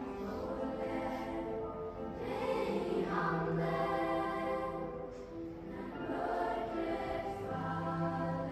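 School choir singing a slow song in long held notes, heard from the audience in a large concert hall.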